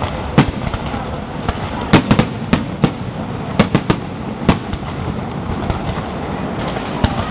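Fireworks display: sharp bangs of bursting shells at uneven intervals, several in quick succession about two and four seconds in, over steady background noise.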